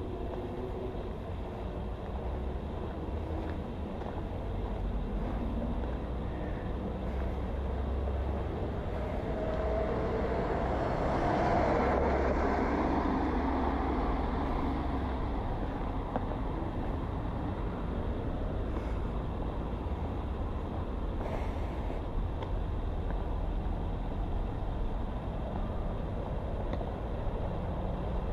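Street traffic noise: a vehicle passes, growing louder to a peak about halfway through and then fading, over a steady low rumble.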